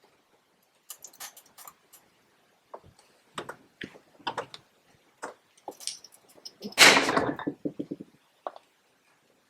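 Workshop handling sounds of tool parts: scattered knocks and clicks, then a louder clatter about seven seconds in followed by a quick rattle.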